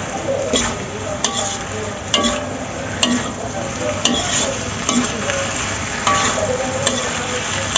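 Metal spatula scraping and clanking against an aluminium wok while stir-frying flat rice noodles, over a steady frying sizzle. Sharp clanks come about once a second.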